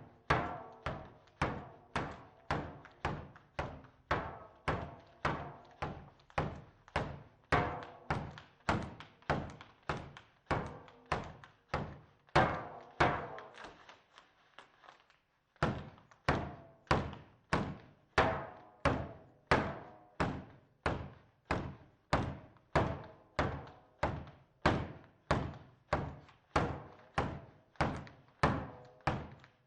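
Inflatable plastic thunder sticks being banged together in a steady rhythm, about two hits a second, each hit a hollow bang with a short ring. The hitting stops briefly near the middle and then resumes.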